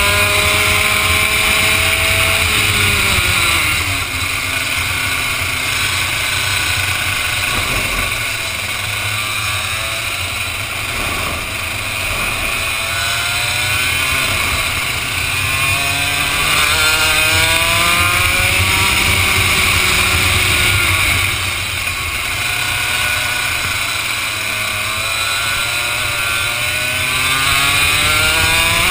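A Vortex ROK 125cc two-stroke kart engine heard from the driver's helmet. Its pitch falls over the first few seconds as the throttle comes off, stays low for a while, then climbs and drops again several times as the kart accelerates and brakes, over a steady hiss of wind.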